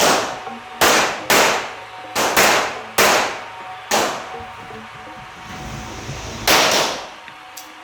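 Pistol shots at a shooting range: about eight sharp, loud cracks at irregular spacing, each with a short echo. They are bunched in the first four seconds, with a pair near the end.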